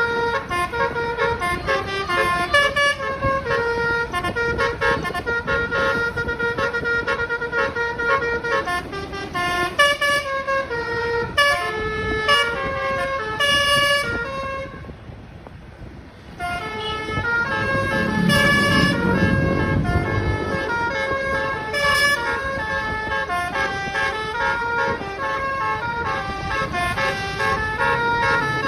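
Telolet bus horn, a set of air-horn trumpets, playing a fast stepping melody of several notes. It breaks off for about two seconds around the middle, then starts again, with a low rumble under it just after it resumes.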